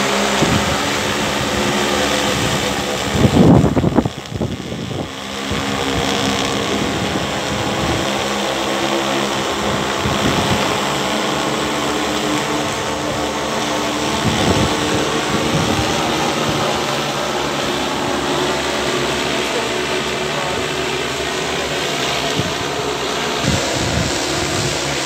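Large multirotor spray drone hovering overhead, its propellers giving a steady buzz made of several held tones. About three and a half seconds in there is a brief loud low rumble, then the buzz dips for a moment before settling back.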